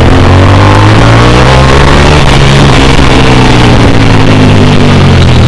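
Bajaj Pulsar RS200's single-cylinder engine running under way. Its pitch rises slowly and then eases back down, with a steady rushing noise over it.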